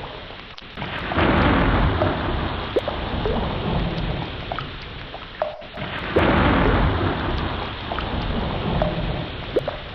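Heavy rain falling steadily, with deep rolling thunder that swells loudly about a second in and again about six seconds in, and scattered drops ticking.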